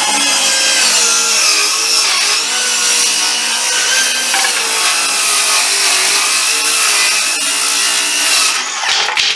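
Hercules 7-1/4-inch cordless brushless circular saw, fitted with a 24-tooth framing blade, making a rip cut along a wooden board. Its whine runs steadily under load, dipping slightly in pitch a couple of times as it is pushed, and it cuts through easily without bogging down. It stops about nine seconds in.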